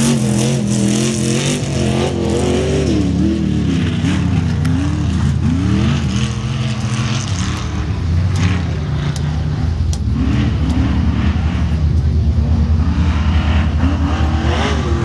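Off-road race truck's engine revving hard up and down, its pitch rising and falling every second or so as the driver works the throttle. A few sharp clicks come about eight to ten seconds in.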